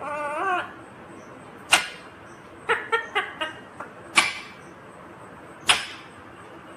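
Indian ringneck parakeet calling: a short warbling, pitched call at the start, then a handful of sharp, brief squawks spaced out over the next few seconds.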